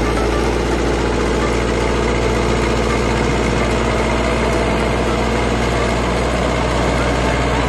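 HMT 5911 tractor's diesel engine running steadily as the tractor pushes soil with its front dozer blade.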